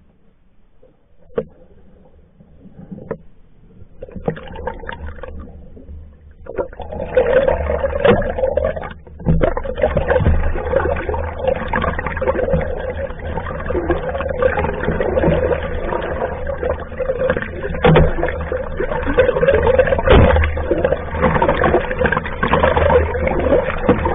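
Water rushing and bubbling past a camera held underwater along a moving pack canoe's hull, heard muffled through the water. It starts faint with a few clicks, then builds after a few seconds into a steady rush.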